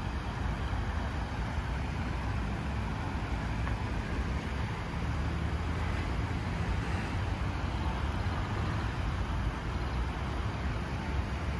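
Steady splashing of a park fountain's foaming water jets, mixed with a constant low hum of city traffic.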